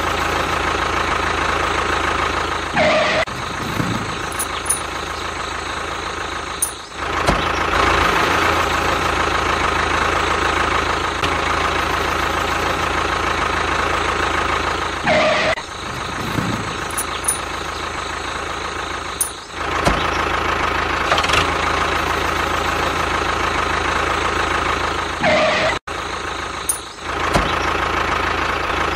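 Tractor engine running steadily, the sound dipping briefly a few times.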